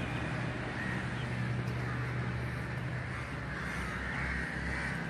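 Crows cawing, most clearly in the second half, over a steady low hum.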